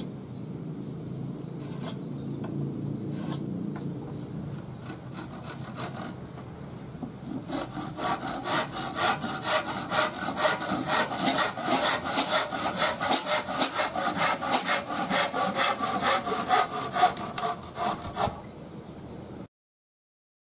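Hand saw cutting through a wooden board: a few slow starting strokes, then steady, even back-and-forth strokes, about four a second, which stop near the end.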